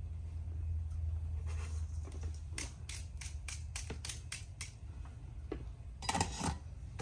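A quick run of about ten light clicks, roughly four or five a second, from small tools being handled at a workbench. A short clatter near the end as the soldering iron is set back in its stand. A low hum underneath throughout.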